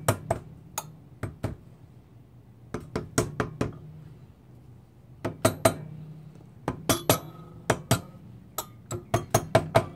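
Mallet tapping a GY6 180cc big-bore aluminium cylinder down over the piston onto the crankcase. Light taps come in short runs of two to five, working around the corners to seat the cylinder evenly. Some taps leave a brief metallic clink.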